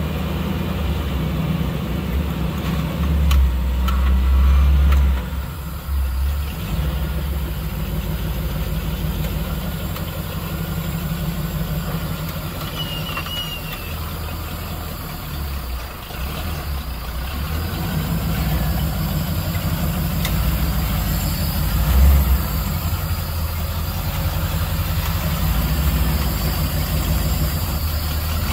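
Off-road recovery rig's engine running at low revs as it crawls slowly over rock. The throttle swells up briefly about four seconds in and again about 22 seconds in.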